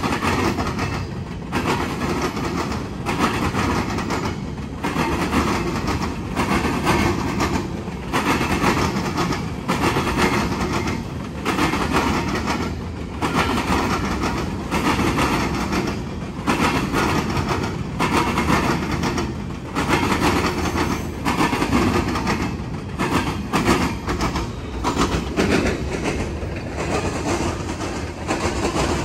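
Freight train cars rolling past at close range: the steady rumble and clatter of steel wheels on rail, with the clatter rising and dipping about every second and a half as car after car goes by.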